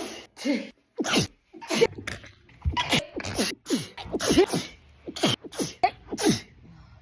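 A woman sneezing again and again in a sneezing fit, about a dozen short sneezes in quick succession, that stops near the end.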